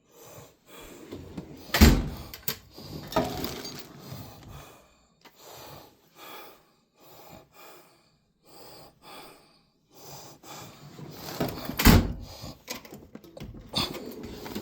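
Handling noise with scattered knocks, and two loud thumps: one about two seconds in, another near the end.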